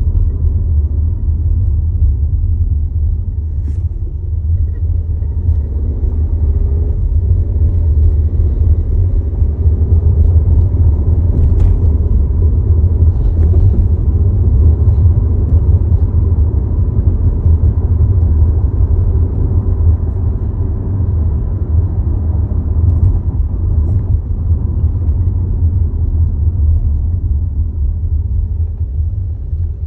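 Steady low rumble and vibration from a 2022 Volkswagen Tiguan SE R-Line, the vibration noise its owner reports when the start-stop system is activated, with a faint steady whine above it.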